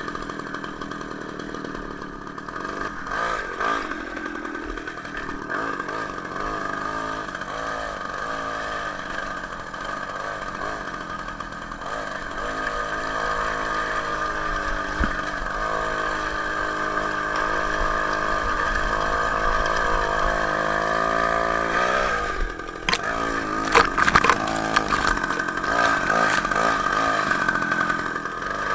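Two-stroke Ural chainsaw engine driving a homemade moped, running hard under load on a climb, its note rising and falling with the throttle and climbing steadily for several seconds before dropping. A few sharp knocks and clatters come near the end.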